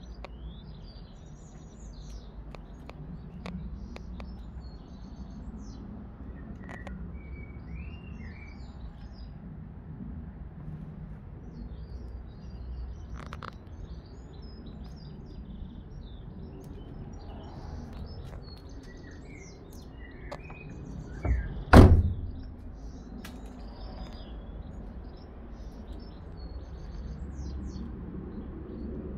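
Small birds chirping and twittering throughout over a steady low rumble. About three-quarters of the way through, a van door slams shut with two heavy thuds close together.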